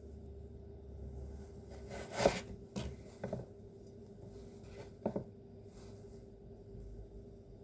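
A knife cutting carrot on a cutting board: about four irregular knocks, the loudest about two seconds in, over a faint steady hum.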